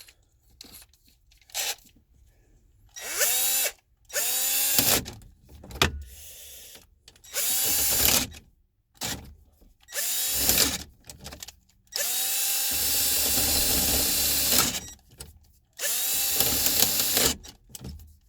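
Ridgid power drill boring into a jammed ignition lock cylinder, run in about seven short bursts. Each burst starts with a rising whine as the motor spins up, and the longest lasts about three seconds near the end.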